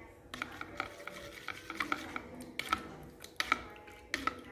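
Metal spoon stirring a thin sauce in a bowl, clinking against its sides in quick, irregular taps with a brief ring.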